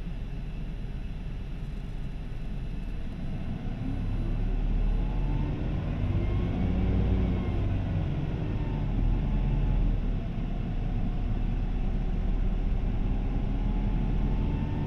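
Isuzu 2DG-LV290N3 (Erga) city bus heard on board, its diesel engine steady and low for the first few seconds, then pulling harder from about four seconds in. The engine's pitch climbs and falls back at gear changes and climbs again.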